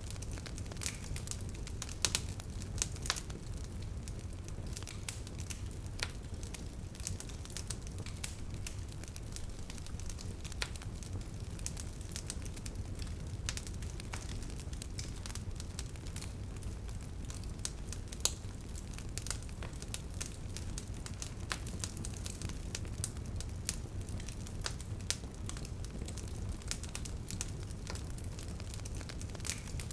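Wood fire burning, with irregular sharp crackles and pops over a steady low rumble; a few pops are louder than the rest.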